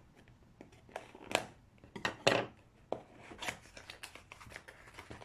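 Packaging of a small wire antenna being opened and handled: rustling and scraping, with two sharp bursts about 1.4 and 2.3 seconds in, the second the loudest, and a few lighter clicks and rustles.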